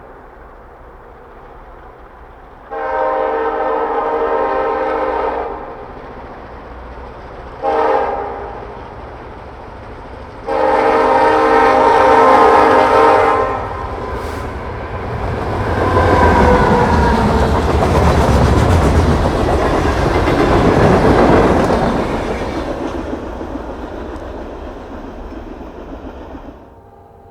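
Nathan Airchime K3-series locomotive air horn sounding a multi-note chord for a grade crossing: a long blast, a short one and another long one, the end of the long-long-short-long crossing signal. The train then passes, its noise swelling and then fading away near the end.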